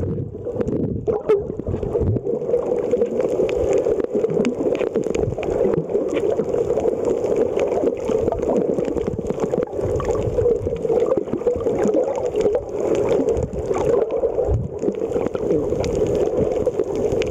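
Underwater sound heard through a submerged camera: a steady, muffled rush of water with scattered crackles and clicks throughout.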